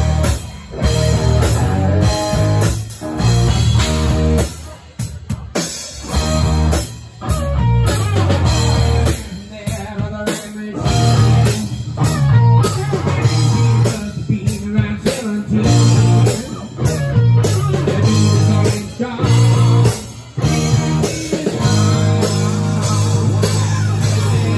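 Live rock band playing electric guitar and drum kit, the music broken by short stops every few seconds before it settles into steady playing near the end.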